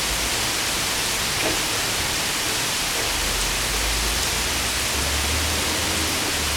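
Steady rain falling on trees and leaves, a continuous even hiss.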